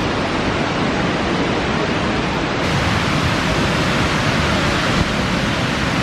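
Steady rush of the Suuçtu waterfall in heavy, rain-swollen flow.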